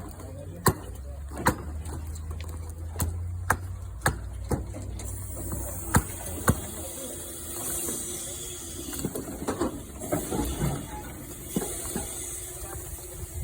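1922 Keck Gonnerman 18 HP steam traction engine: sharp metallic clanks at uneven intervals over a low rumble, then a steady hiss of escaping steam from about five seconds in.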